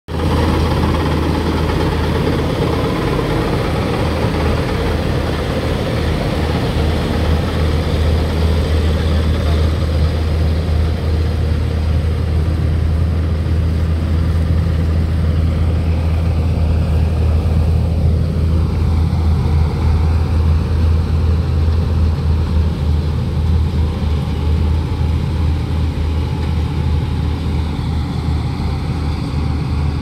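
Dashmesh combine harvester running at work while harvesting: a loud, steady deep engine drone with mechanical noise over it, continuous throughout.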